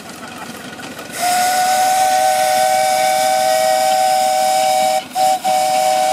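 Miniature live-steam locomotive's whistle blowing one long two-note blast with a rush of steam hiss. It starts about a second in and is broken twice briefly near the end.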